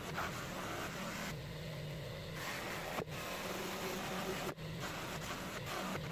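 Bench grinder motor running with a buffing wheel, steel pincers pressed against it for polishing: a steady rubbing hiss over the motor's hum, broken twice briefly about three and four and a half seconds in.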